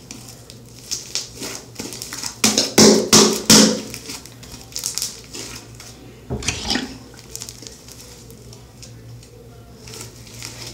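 Fluffy slime squeezed and stretched by hand, making sticky squelches and crackles, busiest about two to four seconds in and again near the middle, over a steady low hum.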